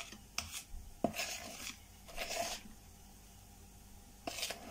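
A metal spoon folding flour into thick sponge-cake batter by hand in a plastic bowl: a few soft, wet scraping strokes, a pause of over a second, then one more stroke near the end.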